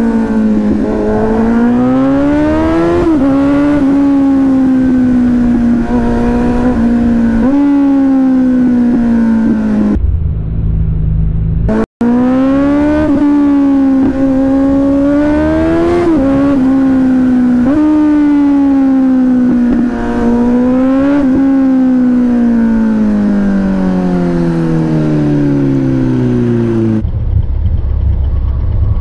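Kawasaki Z900's inline-four engine heard from the rider's seat, pulling through the gears. Its note climbs and drops sharply at each upshift, then falls in one long glide as the bike slows. Twice the engine note gives way briefly to a low rumble.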